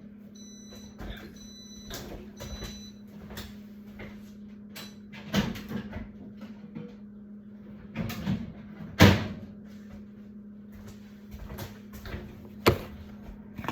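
A microwave oven beeps four short times, with a steady low hum under it. Scattered clicks and knocks of the door and dishes being handled follow, the loudest a sharp knock about nine seconds in.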